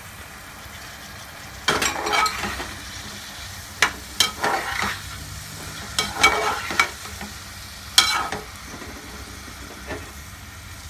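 A utensil stirring and scraping a pan of frying potatoes, onions and freshly added chopped tomato. It comes in short scraping bursts every second or two over a faint steady sizzle.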